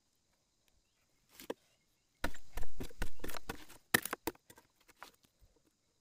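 A blade chopping and splitting a length of green bamboo: one sharp knock, then a quick, dense run of hard chops and cracks, tailing off into a few light taps.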